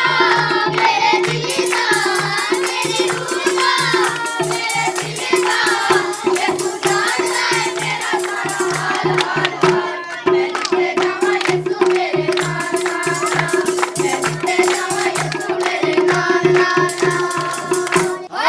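Group of women and children singing together with brisk hand clapping, accompanied by a tabla pair: a steady ringing right-hand drum and regular low strokes on the bass drum. The song stops just before the end.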